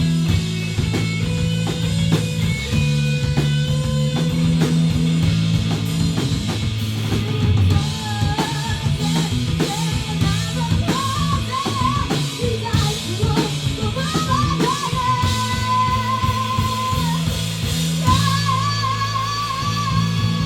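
A three-piece rock band playing live, with electric guitar and drum kit over steady low notes. From about eight seconds in, a high wavering melody line is held over the top.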